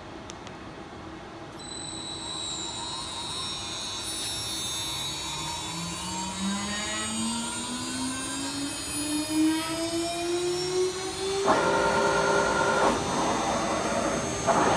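CNC router spindle motor spinning up: a whine that rises steadily in pitch over several seconds as the spindle comes up to speed. Near the end, a louder mechanical whirring joins in as the machine moves the spindle head into position.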